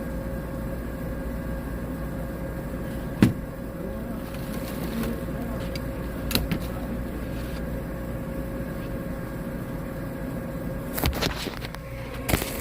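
Steady hum of running HVAC equipment. A sharp knock comes about three seconds in, and a cluster of knocks and clicks from hands and tools on the unit comes near the end.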